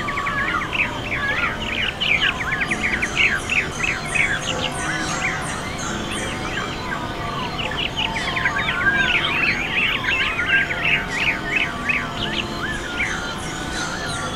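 A chorus of many small birds chirping and twittering, a dense stream of quick rising and falling calls, over a steady low drone.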